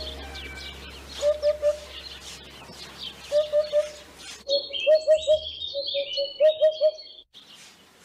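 Eurasian hoopoe calling its low 'hoop-hoop-hoop', short notes in runs of three repeated several times. Smaller songbirds chirp higher above it for a few seconds in the middle.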